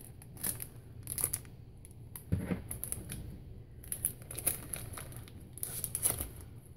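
Paper and cardboard rustling and crinkling, with scattered light clicks and taps, as the pieces of a paper craft kit are handled and lifted out of a cardboard box.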